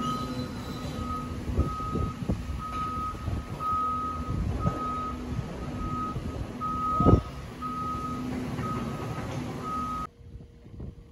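Reversing alarm of a construction machine beeping steadily, about three beeps every two seconds, over low machinery rumble and scattered knocks, the loudest a thump about seven seconds in. The beeping stops abruptly about ten seconds in.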